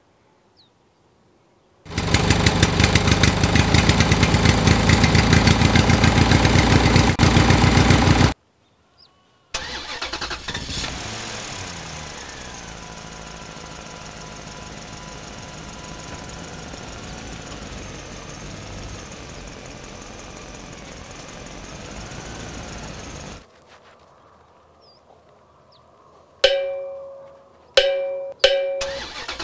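Engine sound: a loud, rapid pulsing run for about six seconds, then after a short pause a quieter steady running with slowly wavering pitch that stops suddenly. Near the end come three or four sharp knocks with a short ringing tone, as wooden sticks strike the toy dumper truck's plastic bed.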